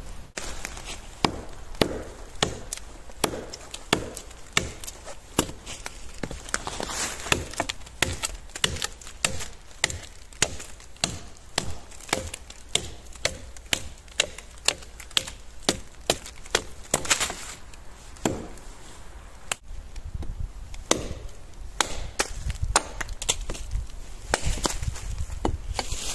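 A steady series of sharp, woody cracks and knocks, about two a second, with some rustling between them.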